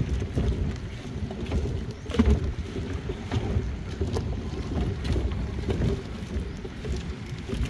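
Wind buffeting the microphone over water sloshing against a floating plastic pontoon dock, with soft knocks about once a second.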